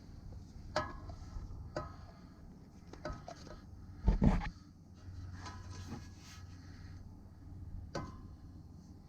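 Scattered light metallic clinks and knocks from handling, with one heavy low thump about four seconds in.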